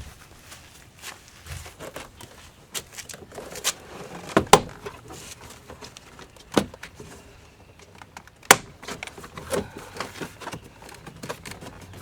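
Plastic parts on a 2010 Jeep Patriot door being pried loose: a scattered series of sharp cracks and snaps, loudest about four and a half and eight and a half seconds in, that sound like something breaking.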